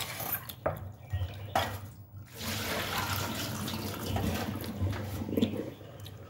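Tap water running onto boiled macaroni in a plastic colander as a hand stirs the pasta to rinse it. The flow breaks off briefly twice and thins out near the end.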